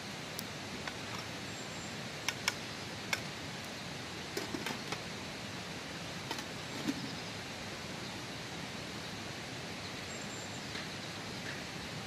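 Steady rush of stream water, with a handful of sharp metallic clinks in the first seven seconds as a metal lid is set on a cooking pot over a wood fire.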